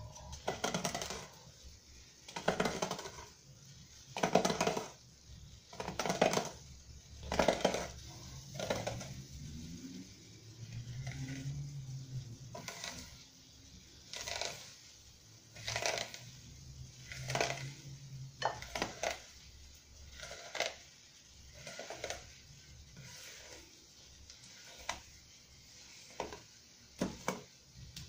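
Kitchen knife cutting nopal cactus pulp into small squares, its blade tapping the wooden cutting board about once every one to two seconds, roughly twenty strokes in all.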